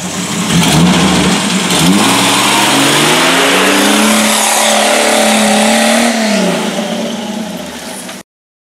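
Off-road 4x4 engine revving hard, climbing in pitch and held high for a couple of seconds before dropping back, over a steady noise of tyres churning through mud. The sound cuts off suddenly near the end.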